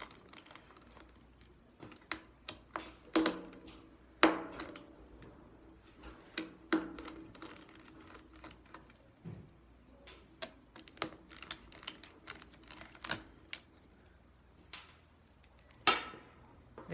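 A small screwdriver and screws clicking and tapping against the battery and plastic chassis of a Dell 3100 Chromebook as the three battery screws are undone: irregular sharp clicks, with a few louder knocks scattered through.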